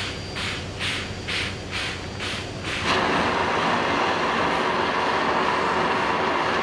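Steam locomotive hissing in rhythmic puffs, about two a second. About three seconds in, a sudden loud, steady rush of steam starts and keeps going as the engine vents a big cloud of steam low at its side.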